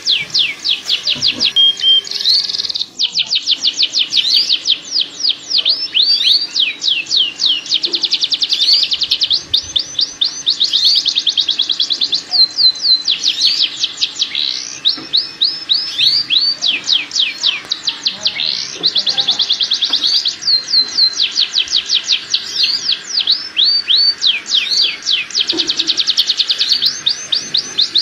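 Domestic canary song: rapid rolling trills of repeated sweeping notes, about a dozen a second, switching to a new note type every second or two with hardly a break. This is the full breeding song of a male canary in mating condition.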